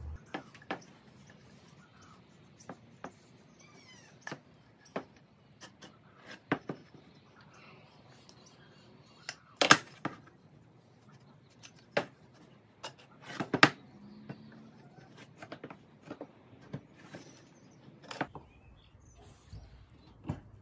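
Pine timber pieces handled and set down on a plywood workbench: scattered light wooden knocks and clicks. The loudest knocks come about ten seconds in and again a few seconds later.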